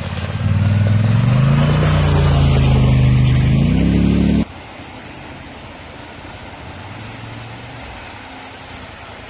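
ATV engine revving close by, its pitch climbing, dipping and climbing again, then cutting off suddenly about four and a half seconds in. A quieter steady rumble follows.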